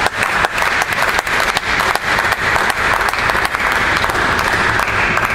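Spectators applauding a point in a table tennis match: a dense, steady patter of many hands clapping.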